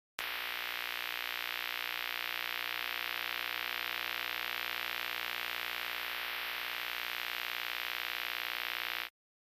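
Steady electronic synthesizer drone of held tones under a loud hiss, switching on abruptly and cutting off sharply after about nine seconds.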